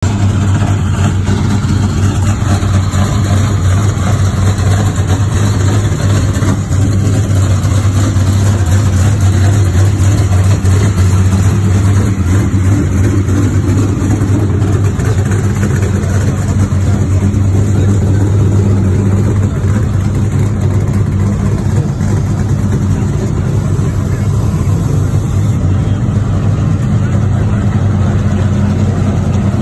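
A steady low engine drone with a constant hum, unchanging throughout, over a general background haze.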